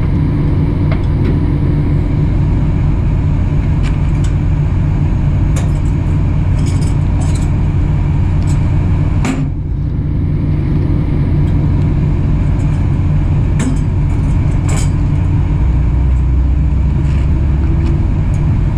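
Steady low rumble of an idling diesel truck engine, with scattered sharp metallic clicks and clanks as the container chassis's landing-gear crank handle is worked, one louder clank about nine seconds in.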